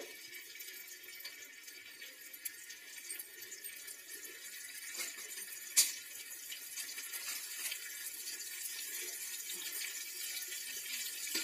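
Green chillies, mustard seeds and cumin sizzling in hot oil in a small tempering pan: a steady hiss with scattered crackles and one sharp loud click about six seconds in, growing a little louder toward the end.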